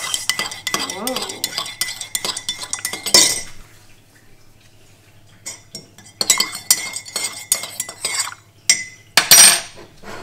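Metal teaspoon stirring and clinking against the inside of a ceramic mug, dissolving stock powder in hot water. The stirring comes in two spells with a lull of about two seconds between them, and a short, louder clatter near the end.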